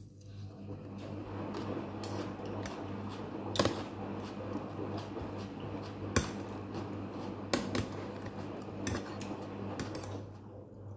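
Metal fork and spoon scraping and clinking on a plate while stirring and twirling a noodle papaya salad, with a few sharper clinks standing out.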